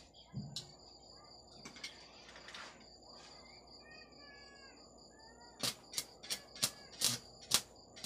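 Homemade microwave-oven-transformer stick welder's electrode being touched to the workpiece to strike an arc: sharp crackles, about two or three a second, starting about five and a half seconds in and getting louder. Before them only a faint steady high whine and a few short chirps.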